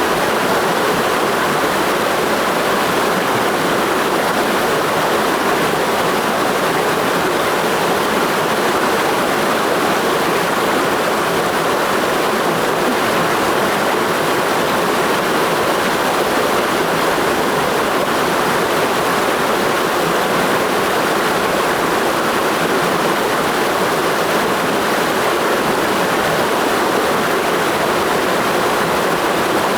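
Clear mountain stream rushing over rocks in a steady, unbroken flow.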